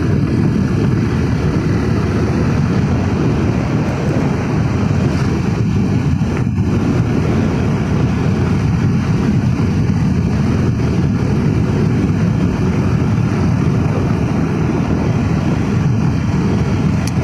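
Suzuki Gixxer motorcycle cruising steadily at about 60 km/h: a steady rush of wind over the microphone mixed with the engine and tyre noise.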